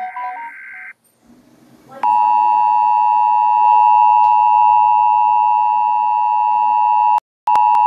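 The tail of an EAS digital header burst, a raspy data buzz that cuts off about a second in. After a short pause comes the Emergency Alert System attention signal: a loud, steady two-tone alarm that starts about two seconds in and drops out for a moment near the end before carrying on.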